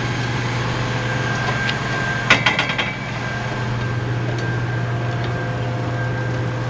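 Steady low hum of an idling engine. About two seconds in comes a short burst of metallic clicks and clanks as the aluminium folding ladder is handled.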